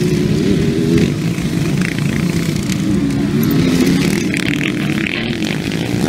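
Several motocross bikes racing through a dirt corner, their engines revving up and down in overlapping pitches as riders accelerate out of the turn.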